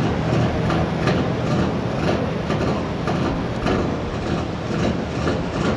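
Pro stock pulling tractor's diesel engine running loud and steady, with a low drone and a rough, uneven beat; it comes in abruptly at the start.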